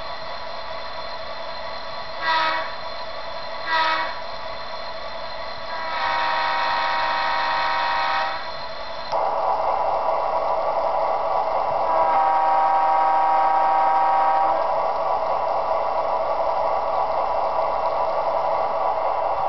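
Digital sound of a Bachmann DDA40X model diesel locomotive played through small test speakers: a steady engine drone with two short horn toots, then a long horn blast. About nine seconds in the engine sound gets louder and fuller, and a second long horn blast follows.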